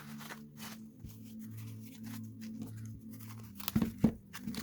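Soft background music with a steady low melody. Over it come light clicks and rustling from a folding metal multi-tool being handled, then two sharp metal clicks a little before the end.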